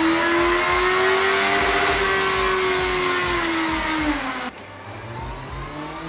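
Honda CBR 650F's 649 cc inline-four revving hard on a dynamometer, its pitch climbing to a high steady note, then sagging and cutting off suddenly about four and a half seconds in. A lower engine note then starts climbing again near the end.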